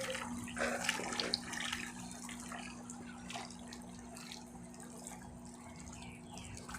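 Electrolux 11 kg washing machine taking in water: water splashing and running into the drum over a steady low hum. The splashing is louder for the first two seconds, then eases off.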